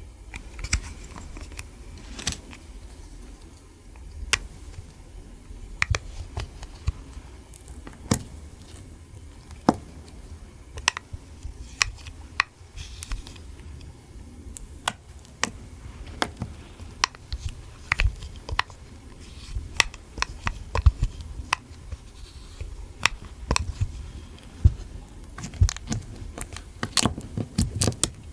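Irregular sharp clicks and taps of plastic makeup cases and tools being handled, a few each second, over a low rumble.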